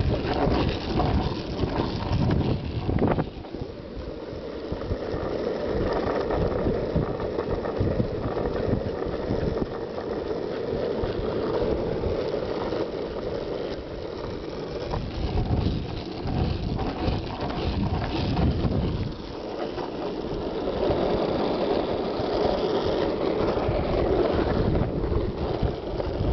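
Motorized treadmill running steadily, its motor and belt giving a continuous hum with a low rumble, as a dachshund runs on it.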